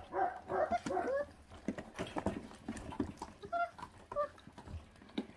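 Feral-dog puppies eating raw meat and bone, with sharp chewing and crunching clicks. A quick run of short whines comes in the first second or so, and two more brief whines come around the middle.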